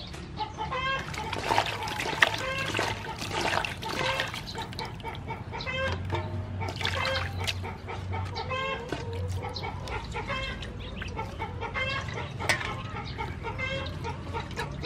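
Chickens clucking over and over in short repeated calls, with water splashing as broccoli pieces are washed by hand in a steel bowl.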